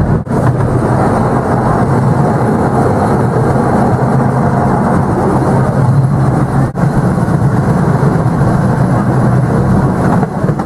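Steady rumble of a park railway train running along its track, heard from aboard a riding carriage, with no distinct exhaust beats. The sound briefly drops out twice.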